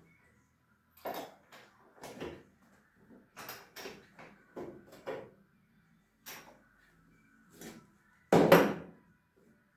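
Metal tools and parts clinking and knocking in about a dozen separate sharp strikes, with a louder clatter near the end.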